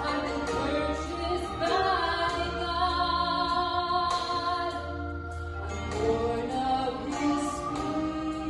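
Two women singing a Christian song as a duet into microphones, with long held notes over a steady instrumental accompaniment.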